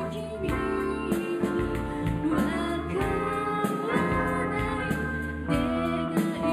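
Live rock band playing: a woman singing lead over electric guitar, bass guitar and drums, with regular cymbal hits.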